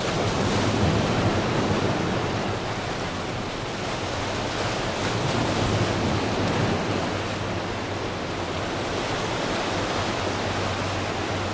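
Helicopter rotor and turbine noise as it descends and hovers low to land: a steady rushing wash with a low steady hum underneath.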